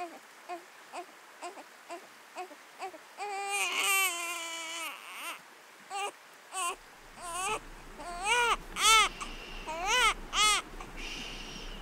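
Baby crying. It starts with short fussy whimpers, rises into a longer cry about three seconds in, and from about seven seconds on breaks into a run of loud wails that rise and fall. Near the end comes a soft hushing 'shh'.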